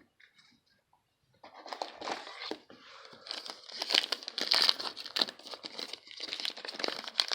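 Plastic-foil wrapper of a baseball card pack crinkling as it is torn open and handled, starting about a second and a half in and going on as a dense crackle.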